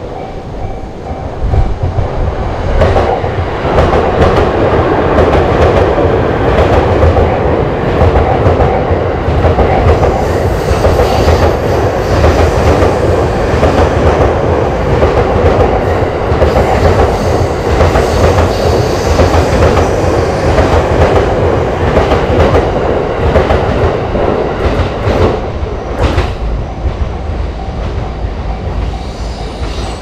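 Electric commuter train running through a railway level crossing: a loud, steady rumble with wheels clacking over the rail joints. The crossing's warning bell rings at the start.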